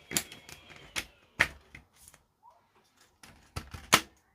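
A few irregular sharp clicks and taps as parts of a Sansui TU-77X tuner are handled and pushed into place, the loudest click near the end.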